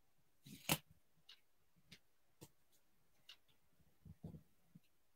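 Nearly quiet, with a few faint clicks and taps of card stock being handled and pressed into place by fingers. One sharper click comes about two-thirds of a second in, and a small cluster of taps comes near the end.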